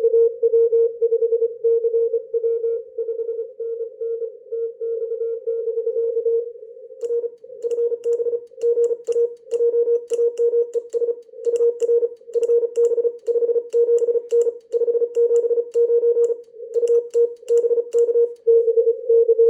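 Morse code (CW) from a ham radio: a steady mid-pitched tone keyed on and off in dots and dashes. From about seven seconds in, sharp clicks of the Morse key come with the characters.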